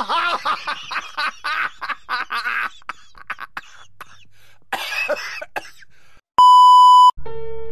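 A man laughing hard through his hand in rapid breathy bursts, dying down and then breaking out again briefly a few seconds later. Then a loud, steady electronic beep lasting under a second, and music starts straight after it.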